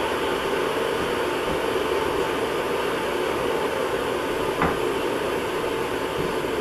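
Russell Hobbs electric kettle heating water toward the boil: a steady rushing hiss, with one faint click about two-thirds of the way through.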